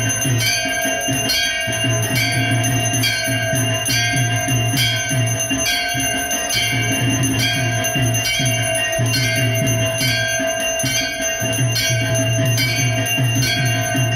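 Brass temple bells rung for aarti worship, struck in a steady rhythm of nearly two strokes a second. A low hum and a lasting ring carry on between the strokes.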